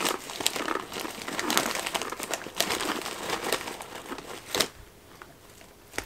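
A plastic snack bag of crushed dry ramen noodles crinkling and rustling as a hand rummages inside it for pieces, in many irregular crackles, with a sharp crackle about four and a half seconds in before it goes quieter.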